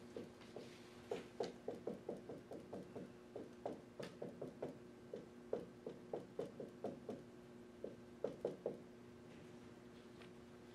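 Marker strokes tapping and scraping on a whiteboard as letters and crosses are written: a quick run of short strokes that stops near the end.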